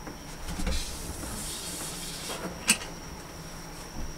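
Fabric curtain being drawn open, its eyelet rings sliding along the curtain rod with a rushing scrape, then one sharp click about two-thirds of the way through.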